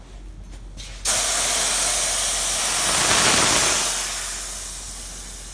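Compressed air hissing out in a strong rush that starts suddenly about a second in, swells, then slowly fades away.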